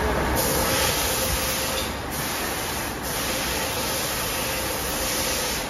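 Mori Seiki CNC milling machine running: a loud hiss switches on about half a second in and cuts off near the end, briefly dropping out around two and three seconds in, over a faint steady whine and low workshop rumble.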